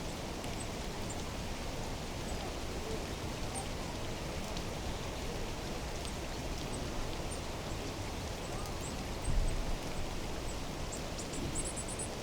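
Steady rushing noise of running water, with faint high bird chirps scattered through and a small cluster of them near the end. A brief low rumble about nine seconds in.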